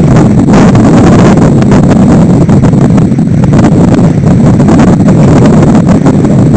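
Loud, steady wind rumble buffeting the microphone of a camera mounted just above the water on a racing sailboat, mixed with water rushing past the hull.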